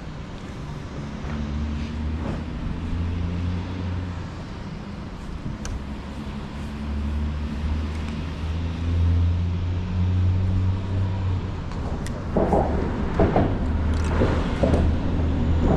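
A boat's motor running steadily with a low hum. Irregular louder sounds join in near the end.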